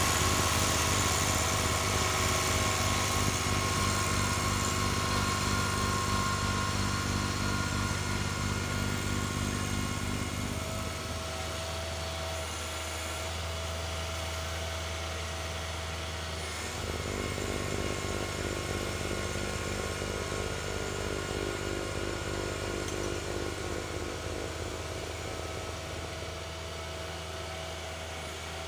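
John Deere 1023E compact tractor's three-cylinder diesel engine running steadily while its 47-inch front snowblower throws wet snow. It grows gradually fainter as the tractor moves off, and the engine note shifts for several seconds around the middle.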